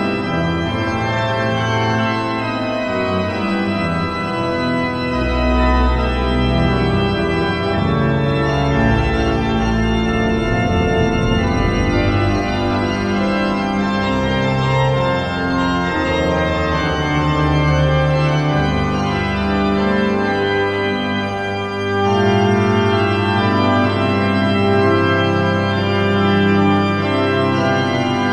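Pipe organ music played on a Hauptwerk virtual pipe organ: several sustained voices moving together over held low pedal notes, with a very deep pedal tone about five seconds in and another held bass from about twenty-two seconds in.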